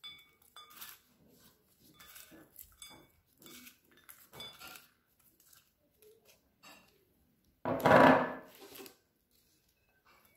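A gloved hand tossing shredded fennel and walnuts in a glass bowl: soft rustling with light clinks against the glass. About eight seconds in comes one short, much louder clatter of dishes being handled.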